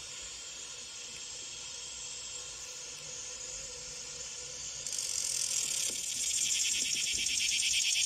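Cryptotympana (말매미) cicada song: a steady high buzzing hiss that grows louder about five seconds in and becomes a fast, even pulsing rasp.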